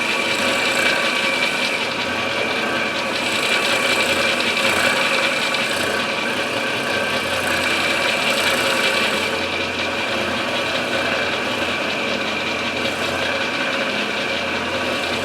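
Milling machine running steadily, its cutter machining the inletting in an English walnut gunstock, a continuous whirring mechanical noise with a steady high tone.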